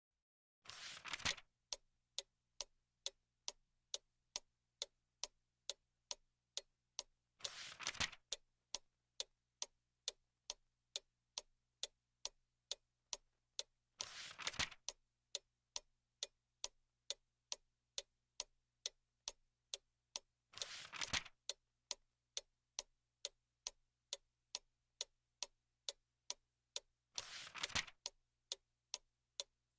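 A clock ticking steadily, about two ticks a second, starting just under a second in. About every six and a half seconds comes a short rustle of a book's page being turned, over a faint low hum.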